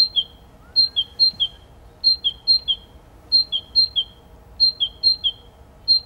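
Recording of a country songbird singing a repeated two-note phrase, a high note dropping to a lower one. The phrase comes in pairs about every one and a half seconds.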